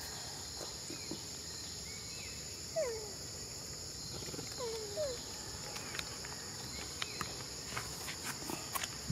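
Steady high insect drone, with a few short falling squeaks about three and five seconds in and light clicks in the last few seconds.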